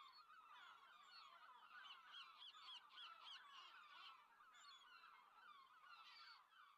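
Faint calls of a flock of birds calling over one another, many short overlapping cries, with a run of about four alike calls a second near the middle.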